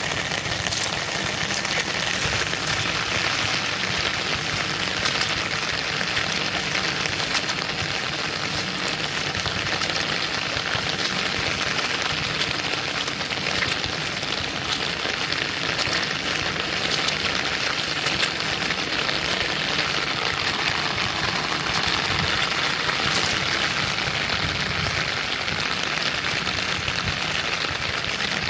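Heavy rain falling steadily: a dense, even patter and hiss of drops that neither builds nor eases.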